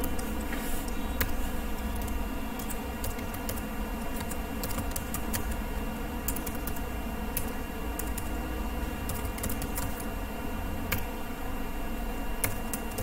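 Typing on a computer keyboard: slow, irregular key clicks over a steady background hum.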